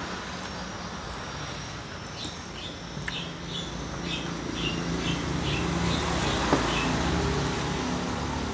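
Road traffic running steadily, with a vehicle's engine rumble building in the second half. A small bird repeats a short chirp about twice a second for several seconds in the middle, and there is one sharp tap late on.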